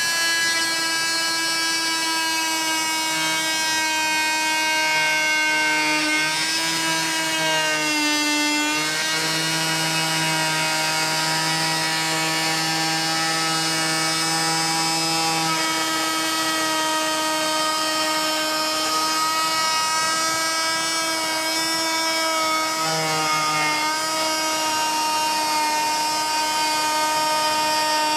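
Wolf Combo Tool Plus oscillating multi-tool, 260 W, with a semi-circle saw blade, undercutting a wooden architrave at floor level: a steady high-pitched buzzing whine that dips in pitch briefly about eight seconds in.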